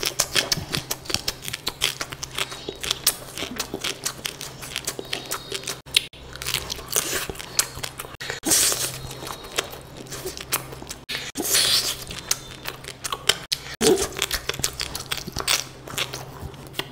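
A person chewing and biting food close to the microphone, with quick, irregular crunching clicks and a few louder bites.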